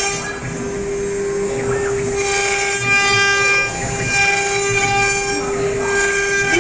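Four-spindle CNC router carving wooden gunstock blanks: its spindles whine at a steady high pitch while the bits cut the wood, with a rougher hissing cutting noise that swells twice and fades.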